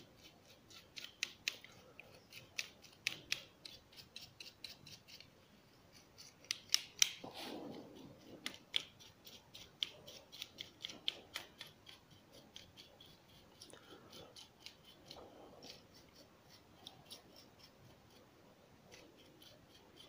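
Brush bristles sweeping over a PS4 DualShock 4 controller's circuit board and analog-stick potentiometers, clearing off lint and dust. The strokes come as faint, quick, scratchy flurries of small ticks, busiest about one second in and again around seven seconds.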